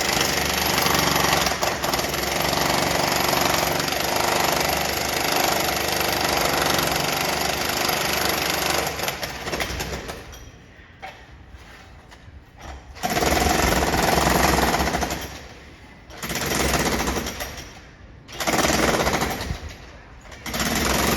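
Power chisel (demolition hammer) breaking up a concrete floor during a flat renovation. It hammers without a break for about nine seconds, then stops and starts again in four short runs with brief lulls between them.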